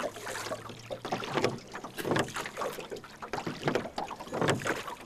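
Irregular knocks, rustles and water noises in a small rowboat, with no speech.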